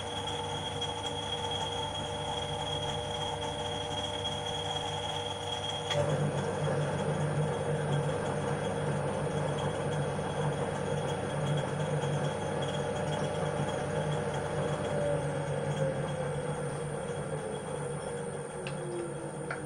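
Harrison L6 lathe running under power with its repaired clutch now working. About six seconds in a click comes as the clutch lever is thrown, and the running gets louder as the headstock takes up the drive. Later the pitch falls steadily as the machine runs down.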